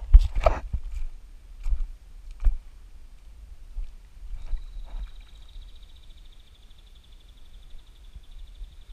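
Footsteps crunching and knocking on loose creek stones and gravel, a few sharp steps in the first couple of seconds. From about four seconds in a faint, steady high-pitched buzz holds on underneath.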